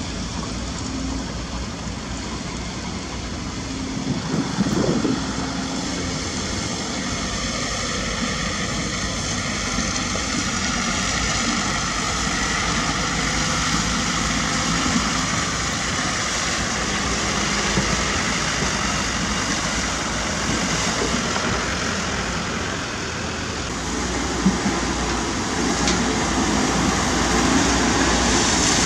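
Diesel engine and hydraulics of a Caterpillar 320D2 GC tracked excavator running steadily while it digs and loads sand, with a brief rise and fall in pitch about five seconds in and a slightly louder stretch near the end.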